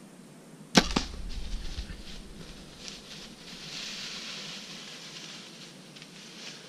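A single sharp, loud thump from a compound bow being shot, with a second smaller knock just after it. Uneven rustling and crackling follow for several seconds.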